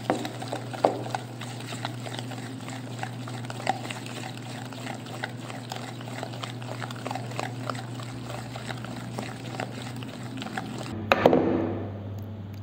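Wire whisk stirring a thick semolina batter in a plastic bowl, with many small irregular clicks of the wires against the bowl. Near the end, milk is poured into the batter from a glass.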